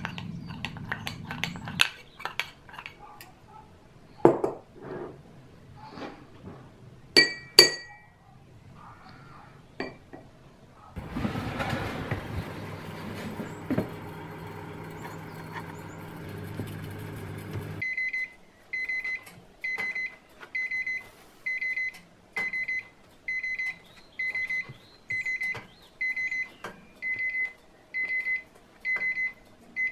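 A spoon clinks against a ceramic cup while stirring syrup and water, with two bright ringing clinks. Then a steady whooshing hum of an oven fan cuts off suddenly, and the oven's timer beeps repeatedly, one high beep about every three-quarters of a second.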